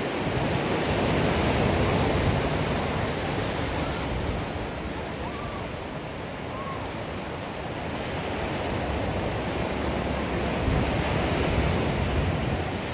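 Small waves washing in over a shallow sandy beach: a steady surf noise that swells and eases slowly.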